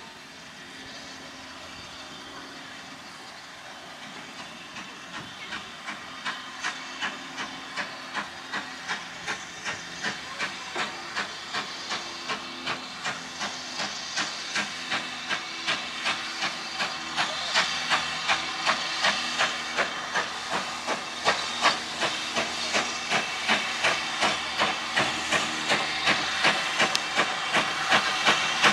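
Steam locomotive coming in alongside a platform: a steady hiss of steam with regular clicking beats, about two a second, that grow steadily louder as it comes closer.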